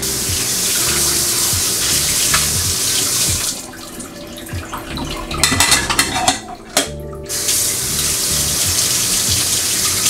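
Kitchen tap running into a stainless steel sink while dishes are rinsed under it. The stream cuts out for about two seconds a little past three seconds in, with a few knocks, then runs again.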